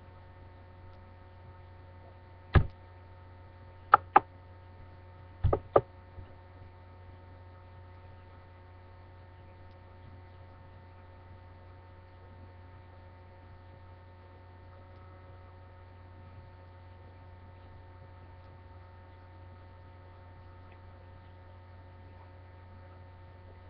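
Steady electrical mains hum with a few faint whining tones, picked up by a webcam microphone. In the first six seconds it is broken by five sharp knocks: one alone, then two quick pairs.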